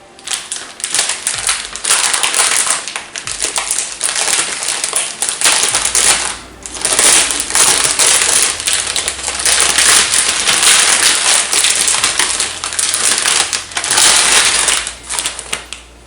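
Plastic packaging crinkling and crackling loudly as it is handled and pulled open, with a short pause about six and a half seconds in.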